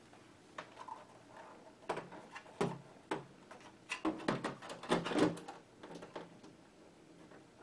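Plastic computer speaker knocking and scraping against the plastic case of a CRT monitor as it is pressed into place on the monitor's side. A run of knocks and scrapes, busiest from about two to five seconds in.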